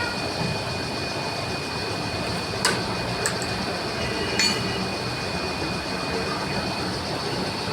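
A machine running steadily with a thin high whine that stops near the end, and three sharp metallic clinks around the middle.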